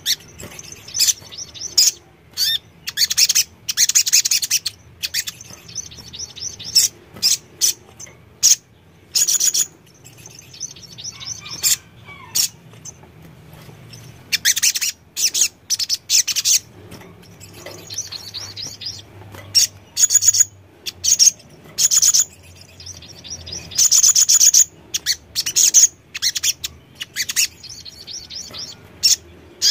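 Male sunbird (sogon) singing: short bursts of rapid, high-pitched chattering trills, a burst every second or so, with a quieter spell near the middle.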